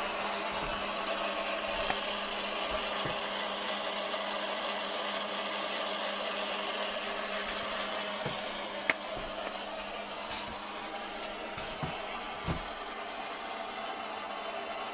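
Rapid high electronic beeping from a telephone ringing: a run of about ten quick beeps a few seconds in, then four shorter bursts of beeps. A single sharp click near the middle, over a steady background hiss.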